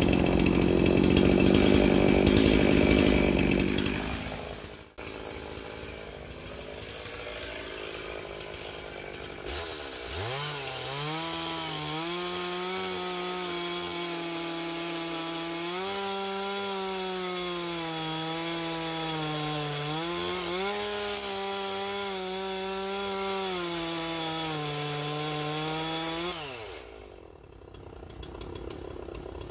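Two-stroke gas chainsaw cutting down into the top of a large upright log. It opens with a loud, noisy stretch. Then the engine runs at high revs under load, its pitch dipping and rising as the chain bites, before it falls away near the end.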